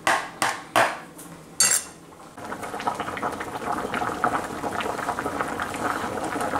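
A metal spoon strikes the plastic basin and pot four times, sharply, as chopped fish and herbs are scraped into a nonstick pot. About two seconds in, a steady crackling sizzle starts from the pot heating on an electric coil burner.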